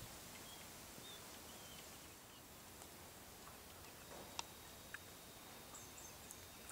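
Quiet outdoor ambience: a faint, steady hiss with a few faint, distant bird chirps, and a couple of light clicks about four and five seconds in.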